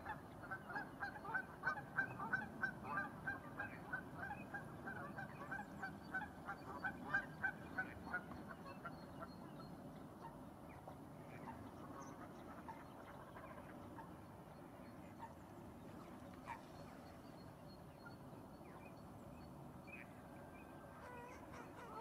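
Geese honking in a quick run of repeated calls that fades after about eight seconds to a few faint, scattered calls.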